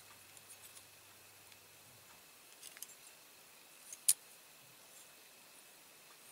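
Light clicks of a small metal hand tool and diecast parts being handled, with one sharper click about four seconds in.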